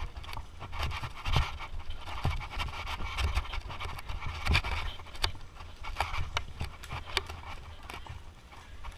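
Mountain bike rattling over a rough dirt trail, with irregular sharp clicks and knocks over a steady low rumble, and the rider breathing hard.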